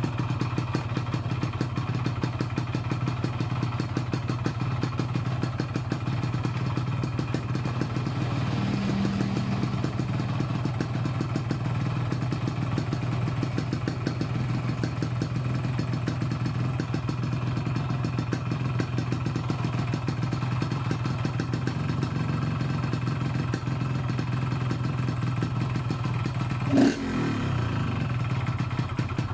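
Yamaha RX-King two-stroke single idling steadily through an Altech C20 aftermarket exhaust while its carburettor is set for everyday riding, a mixture neither too lean nor too rich. Near the end there is one short, sharp rise in engine pitch.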